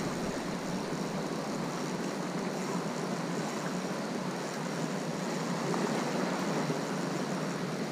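Steady wash of sea surf with wind noise on the microphone.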